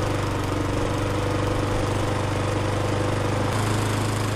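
Petrol lawnmower engine running steadily just after starting up, its note changing slightly about three and a half seconds in.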